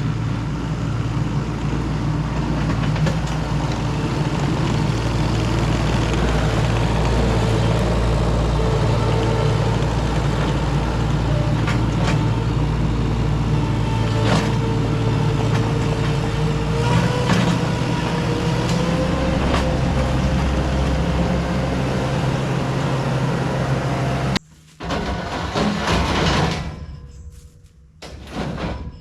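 Diesel engine running steadily under load, its pitch rising a little about two-thirds of the way through. It cuts off suddenly near the end, and a few brief knocks and rustles follow.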